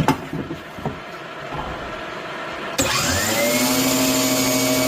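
An electric motor switches on about three seconds in, its pitch rising quickly as it spins up and then holding steady. Before it, a few light knocks and handling sounds.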